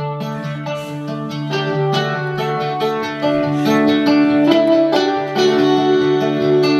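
Guitar music from an MP3 player reproduced through a homemade experimental transistor audio amplifier and a loudspeaker box: plucked notes ringing over a steady bass line, played as a listening test of the amplifier, which sounds like it is working.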